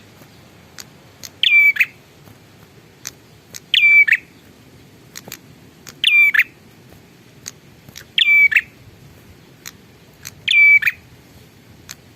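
Prinia (prenjak) calling: a short, loud chirping phrase repeated five times, about every two and a half seconds, with faint sharp ticks between the phrases.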